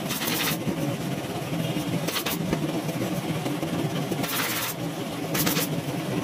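A steady low mechanical hum with four short hissing bursts, irregularly spaced about one to two seconds apart.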